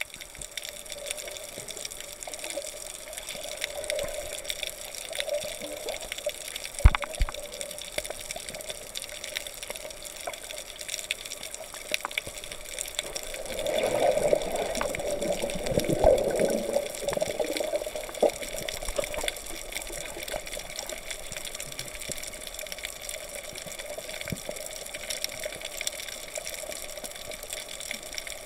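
Underwater ambience picked up by a submerged camera: a steady muffled water rush with thin scattered clicks. It swells louder for several seconds around the middle, with a few sharper clicks earlier.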